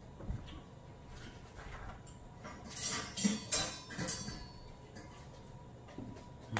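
Metal cutlery clinking in a kitchen drawer as a knife is taken out: a quick run of sharp clicks and clinks about three to four seconds in, then a soft knock near the end.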